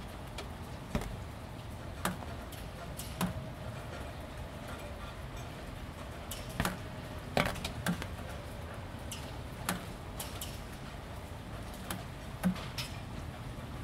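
Light, steady rain with single drips ticking irregularly onto wet corrugated roofing panels, roughly one tick a second over a soft, even hiss.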